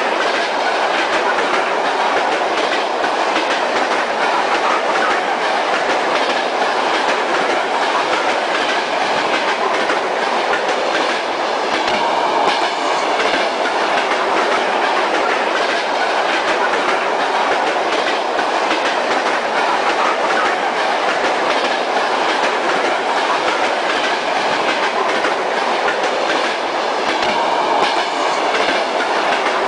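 Kyiv metro train running steadily, heard from inside the carriage: an even rolling noise of wheels on rail, with faint repeated clicks.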